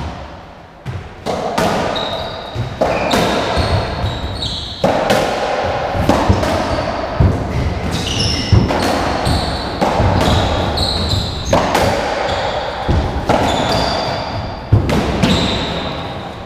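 Racketball ball being struck by racquets and cracking off the walls of a squash court in a doubles rally starting about a second in: sharp, echoing hits about once a second. Trainers squeak briefly on the wooden floor between the shots.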